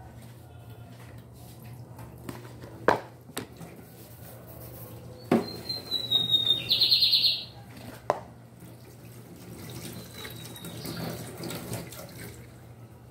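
Kitchen sounds: a few sharp knocks of metal kitchenware, and about halfway through a short, high, chirping call ending in a quick trill, the loudest sound here, over a steady low hum.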